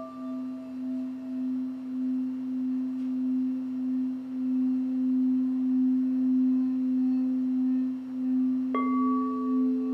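Singing bowls: one bowl's low tone rings on and swells, pulsing in loudness about once a second. About nine seconds in, a second bowl with a different set of higher ringing tones is struck.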